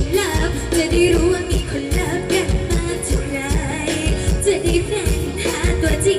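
Live amplified mor lam pop song: a woman singing into a microphone over a band with a steady beat.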